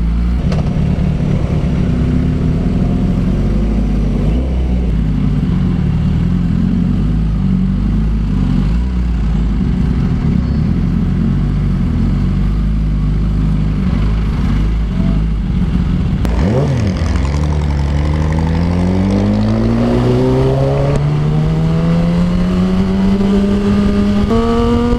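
Kawasaki ZX-10R's inline-four engine at low speed, its pitch wandering. From about two-thirds of the way in it rises steadily in pitch as the bike accelerates.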